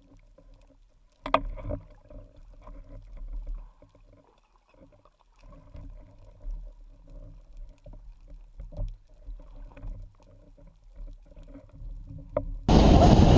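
Muffled underwater sound through a camera housing: a faint steady hum with scattered clicks and knocks, one louder knock about a second in. Near the end it cuts abruptly to loud wind and water noise on a boat.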